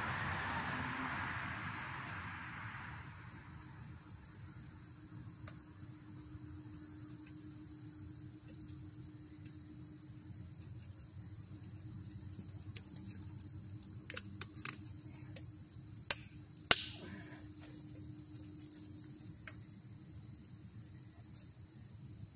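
Crickets chirping in a steady high trill on a riverbank at night. A rustling hiss fades out over the first few seconds, and in the last third comes a cluster of sharp clicks, two of them loud and close together, as the angler handles a caught catfish held in lip grips.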